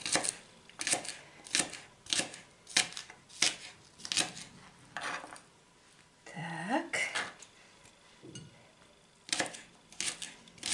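Kitchen knife chopping green onion ends on a plastic cutting board: sharp taps about every half-second for the first five seconds, a pause, then a quicker run of taps near the end. A short rising vocal sound in the pause.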